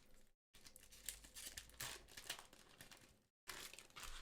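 One Piece Card Game foil booster pack wrapper being crinkled and torn open, a quiet run of crackly rustling with uneven peaks that cuts out twice, briefly.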